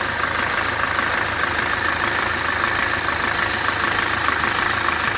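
Toyota Avensis 2.0 D4-D four-cylinder common-rail diesel engine idling steadily with a fast, even clatter. The uploader puts its abnormal noise down to a failed head gasket, which also explains the engine's coolant and power loss.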